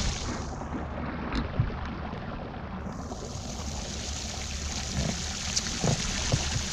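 Heavy rain pouring down onto open water and a boat deck, a steady hiss. The hiss dulls for a couple of seconds near the start, then returns, with a few light knocks.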